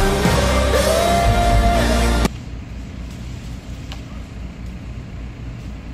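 Background music that cuts off abruptly about two seconds in, leaving a steady low rumble of background noise.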